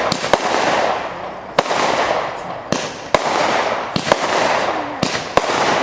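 Fireworks display: aerial shells bursting with sharp bangs about once a second, each followed by a rushing crackle that fades away.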